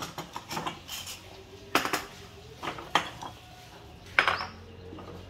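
Ceramic bowls and plates clinking and knocking against each other and the table as they are handled and set down. The sharp clinks come irregularly, and the loudest is about four seconds in.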